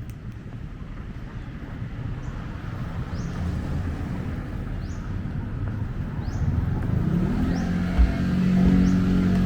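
A motor vehicle's engine grows louder as it approaches and settles into a steady, loud drone for the last couple of seconds. There is a brief thump about eight seconds in. Short high chirps repeat about once a second throughout.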